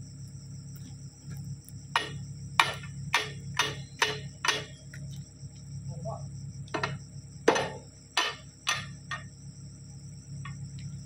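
Hammer blows on the steel bucket pins of a Caterpillar 305.5E2 mini excavator, struck while changing the bucket. There are two runs of sharp strikes, about two a second, with a pause between them.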